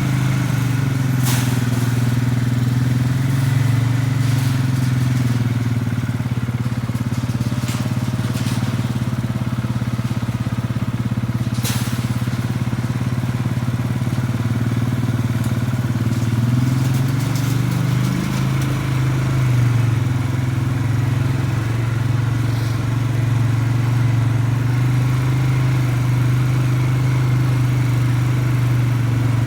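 Polaris Sportsman 570 ATV's single-cylinder engine running steadily while riding, its pitch dipping and rising briefly a couple of times, with a few sharp knocks from the ride.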